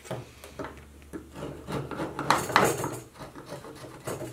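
Metal hive tool scraping old beeswax and propolis off the wooden bar of a beehive frame, in a series of short, rough strokes, the loudest a little after two seconds in.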